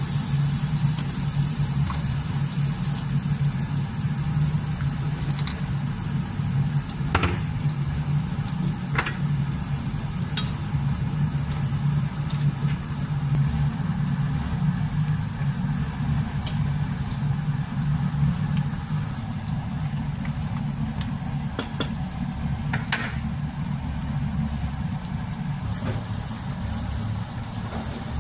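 Blue crabs, squash and chilies simmering in coconut milk in a wok on the stove, bubbling over a steady low hum, with a few light clicks.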